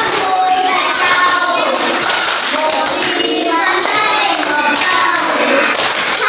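A group of young children singing a song together and clapping their hands along with it.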